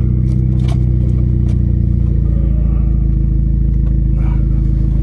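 Straight-piped Volkswagen GTI engine and exhaust running steadily on freshly replaced spark plugs and coil pack, heard from inside the cabin as a steady low note. A few light clicks come in the first two seconds.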